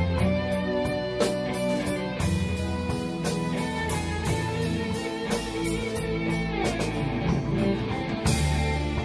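Rock band playing an instrumental passage without vocals: electric guitars and bass guitar over drums, with a steady beat.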